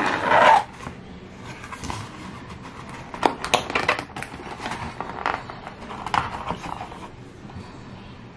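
Cardboard shipping box being handled: a loud rustling scrape at the start as the lid flap opens, then scattered scraping and tapping as a boxed phone is worked loose from the cardboard insert and slid out.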